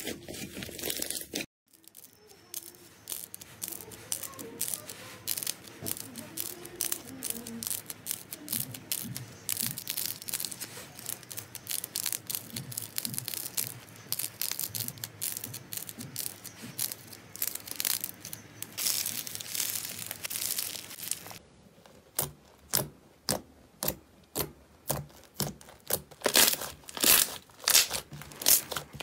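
Hands squeezing and kneading slime, making sticky crackling and popping. A near-silent gap about a second and a half in is followed by dense fine crackling as slime-covered balls are squeezed. Near the end comes a run of separate loud squelches, about two a second, as a soft yellow slime is pressed.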